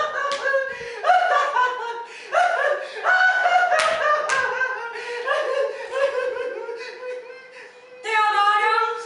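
An actor's voice making drawn-out wordless vocal sounds that bend up and down, ending in a wavering held tone, with a few sharp claps or slaps, the loudest about four seconds in.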